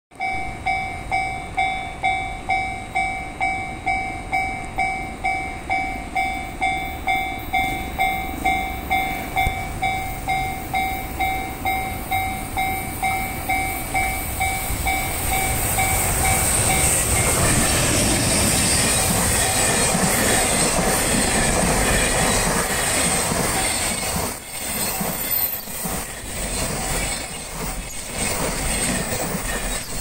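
Level-crossing alarm bell ringing about twice a second, then an EH500 electric locomotive hauling a container freight train passes at speed a little past halfway, its loud rush drowning the bell. The passing wagons follow with a rhythmic clatter of wheels over rail joints.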